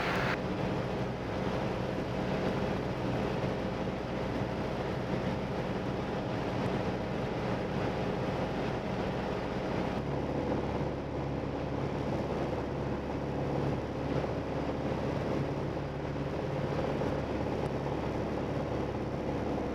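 Piston engine and propeller of a light single-engine airplane droning steadily in cruise, heard inside the cabin. The engine note shifts slightly about halfway through.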